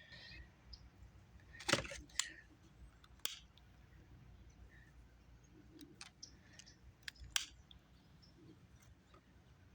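Scattered light clicks and knocks from handling tools and a fuel line, the loudest about two seconds in, over a faint low hum.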